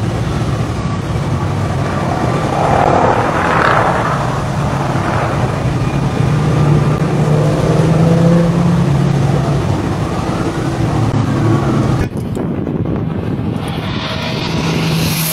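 Jet engines of a large air tanker flying low overhead on a retardant drop: a steady loud rumble that swells as it passes. Near the end the sound changes abruptly to a different outdoor aircraft recording.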